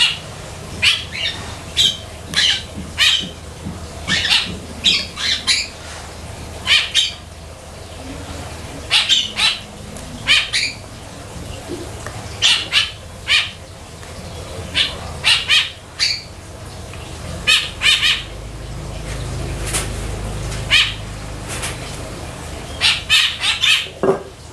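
A bird giving short, sharp high chirps over and over, in irregular clusters of two or three. A low rumble comes up for a few seconds past the middle.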